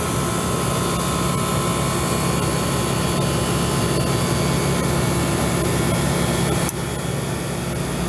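Air-conditioning condensing unit running steadily, compressor and condenser fan with a thin steady whine. About seven seconds in a sharp click cuts in, the whine stops and the running sound drops a little, as the unit's fan cycle switch acts.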